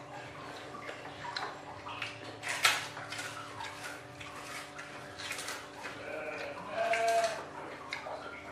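A short bleating animal call about seven seconds in, over light clinks of dishes at the table and a steady low hum; a sharp clink about two and a half seconds in is the loudest moment.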